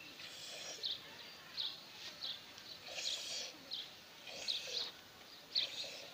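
Hand milking a cow into a small steel bowl: short hissing squirts of milk striking the metal, repeating about every half second to second.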